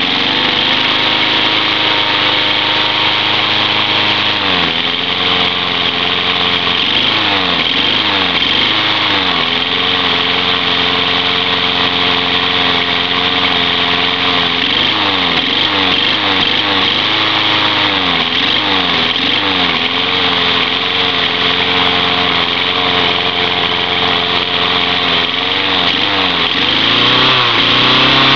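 Tecumseh lawn mower engine running at full throttle just after starting, its speed surging down and back up again and again from about five seconds in; the owner thinks it needs a carburettor rebuild.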